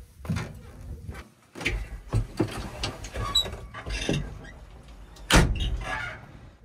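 JCB 3DX backhoe loader working mud: irregular scrapes, thuds and clanks of the bucket and soil, the loudest about five seconds in, over the low steady running of its diesel engine.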